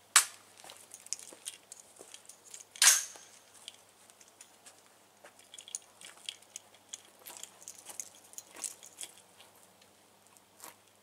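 Handling noise from a 5.56 AR-style rifle as it is readied to shoot: a sharp click just after the start, a brief clatter about three seconds in, then scattered light clicks and rustles.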